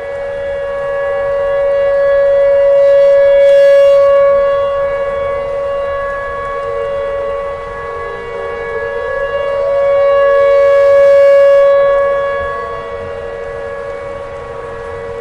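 Tornado warning siren sounding a steady wail that swells louder and fades back twice, with a short upward glide in pitch about nine seconds in.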